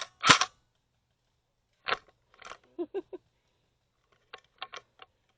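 A scattering of short, sharp snaps and clicks: two loud ones right at the start, then fainter ones in small irregular clusters.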